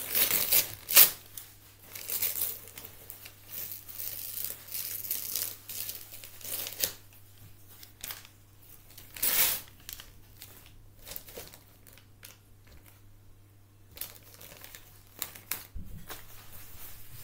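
Wrapping paper being torn and crumpled off a present in irregular bursts, loudest in the first second and again about halfway through, with a quieter lull near the end.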